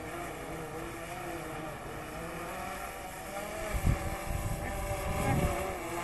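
DJI Phantom 3 quadcopter's propellers whining steadily, the tones wavering slightly in pitch as the motors correct. Wind gusts buffet the microphone twice with a low rumble, about two-thirds of the way through and again shortly after.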